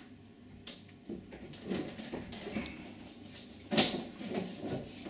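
A uPVC door infill panel being offered into the door sash: a few short plastic knocks and scrapes as it is pushed into place, the sharpest a bit under four seconds in.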